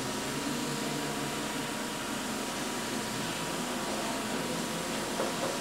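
Steady hiss of compressed air escaping from the gap of a pressurised air bearing as the bearing cap is slid down over the spindle shaft.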